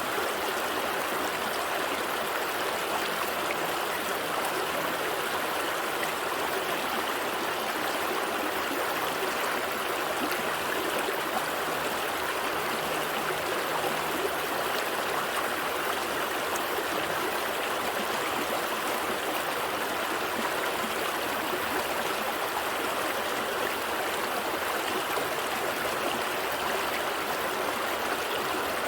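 Small stream flowing and babbling over rocks, a steady rushing and gurgling of water.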